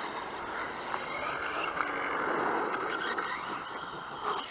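Redcat Racing Shredder 1/6-scale brushless electric RC monster truck running across a field, a steady whir of motor, all-metal spur and pinion gears and tires with a few light ticks, dropping away near the end.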